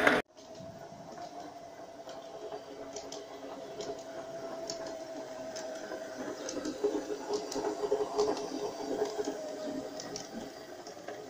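Electric motor of a large-scale model train coach running steadily along garden-gauge track, with a steady whine and hum and light clicks as the wheels cross rail joints and points. It grows a little louder in the middle as it passes close by.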